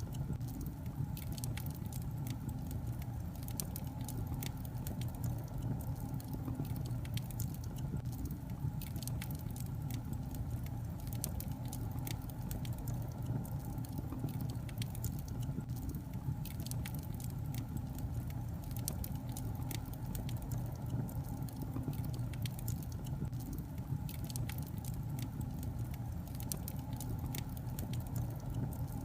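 Log fire burning in a fireplace: a steady low rumble of flames with frequent small crackles and pops, several a second.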